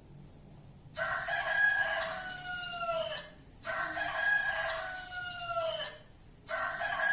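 Recorded rooster crowing three times, each a cock-a-doodle-doo of about two seconds that falls in pitch at the end.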